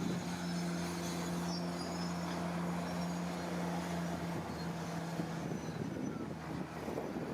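Diesel engine of heavy earthmoving equipment running steadily with a constant low hum; the hum eases a little about four and a half seconds in.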